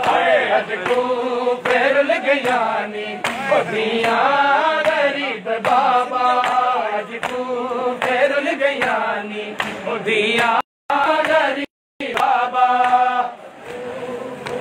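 A crowd of mourners chanting a Punjabi noha (Shia lament) in unison, with rhythmic chest-beating (matam) keeping time. The audio cuts out completely twice, briefly, a little over ten and nearly twelve seconds in.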